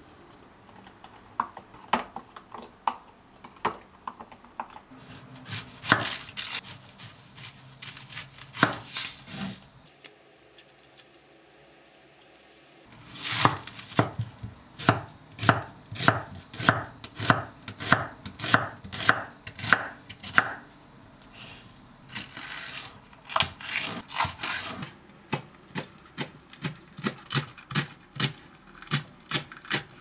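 Kitchen knife chopping onion on a wooden cutting board, a steady run of sharp chops at about two a second, pausing briefly and starting again. Before the chopping begins, about a third of the way in, there are scattered light knocks and a short near-quiet gap.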